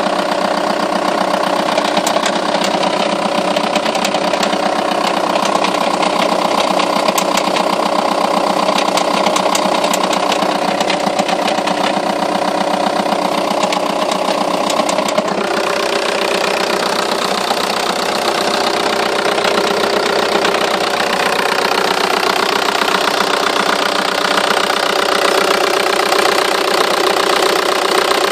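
Seat Leon 2.0 TDI four-cylinder diesel engine running steadily with a knocking, clicking noise that the owner takes to be a fault. The tone shifts lower about halfway through.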